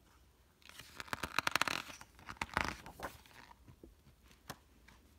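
A picture-book page being turned by hand: paper rustling and crackling for about two and a half seconds, then a single light tap.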